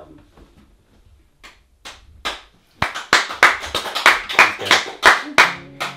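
Audience clapping: a few scattered claps, then denser applause from about three seconds in that stops shortly before the end.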